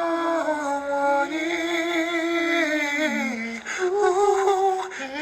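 A man singing a slow Korean ballad line, holding long notes on the word "영원히" (forever). About three seconds in the pitch slides down, then he holds a higher note.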